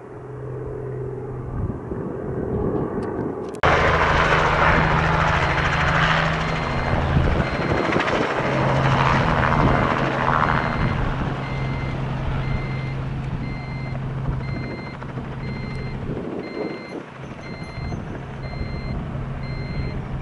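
Robinson R44 Raven II helicopter's rotor and fuel-injected six-cylinder piston engine running as it flies and hovers low. The sound jumps much louder about four seconds in. From about twelve seconds in, a short electronic beep repeats about one and a half times a second alongside it.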